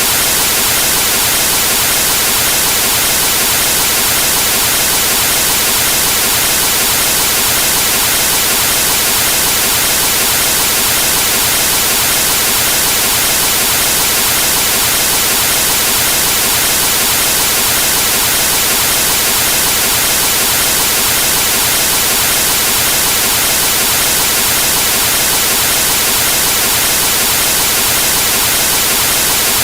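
Steady, loud hiss of television static from a set with no signal, showing snow.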